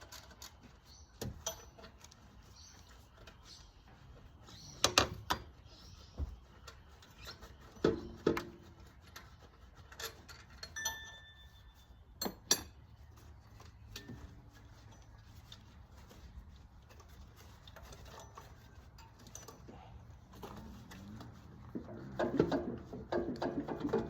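Scattered light clinks and knocks, a few of them sharper, with quiet stretches between.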